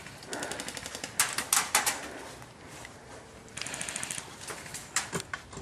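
Airsoft guns firing in several short full-auto bursts of rapid pops, about a dozen a second, with a few louder single shots between.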